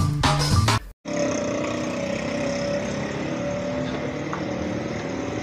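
A music jingle cuts off abruptly about a second in, followed by steady outdoor street noise with small motorcycle engines running.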